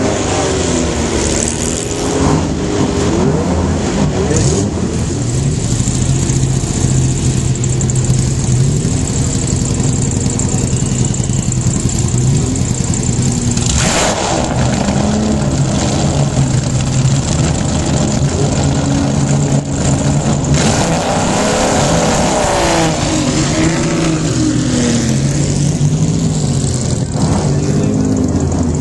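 Several historic racing-car engines running together at idle, with repeated throttle blips that rise and fall in pitch, as the cars prepare to move off.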